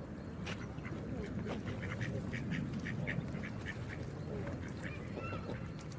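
Geese calling in a quick series of short, repeated honks, with a few higher calls near the end, over the steady rush of running water.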